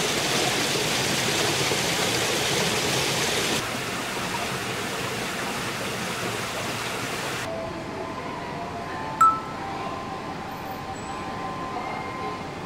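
A steady rushing hiss of water, louder for the first three and a half seconds, that cuts off about seven and a half seconds in. Soft ringing chime tones follow, with one sharp click about nine seconds in.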